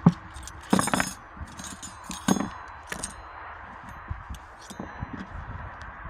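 A handful of sharp clinks and knocks at irregular intervals, some with a brief high ring, as of metal or glass objects striking, amid smaller clicks.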